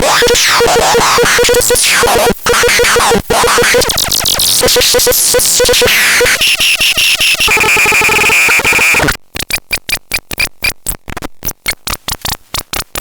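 Harsh electronic noise: a dense hiss with sweeping, whistling pitch glides and a pulsing buzz, breaking into rapid stuttering bursts of noise about nine seconds in.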